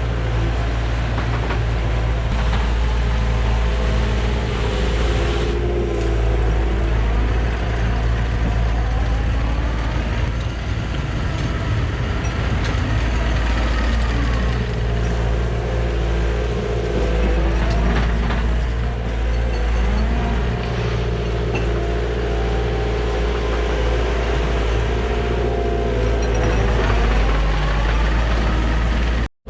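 Heavy diesel equipment running steadily under load, with a whine that rises and falls in pitch over the engine's drone. It cuts off abruptly just before the end.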